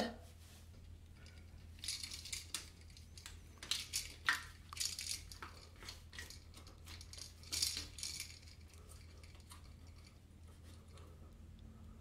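Faint rustling and light clicks of electrical wires, wire nuts and a duplex receptacle being handled and pushed into a metal electrical box, in a few short spells about 2, 4 to 5 and 8 seconds in.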